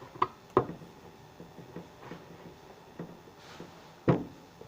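A few sharp knocks and clacks of small hard objects being handled and set down on a table, with light ticks between them; the loudest knock comes about four seconds in.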